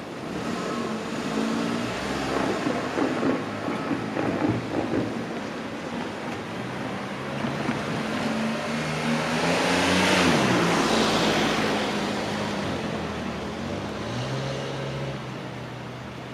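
A vehicle passing close by, loudest about ten seconds in, its hum dropping in pitch as it goes past and then fading.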